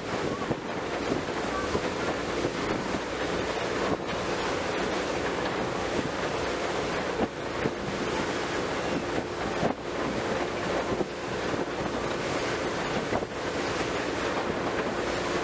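Motorboat under way at speed: rushing wake water and wind buffeting the microphone, with a steady engine hum underneath.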